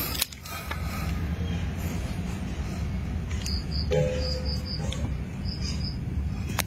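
Insect chirping: short high chirps in a few quick groups starting about halfway in, over a steady low rumble.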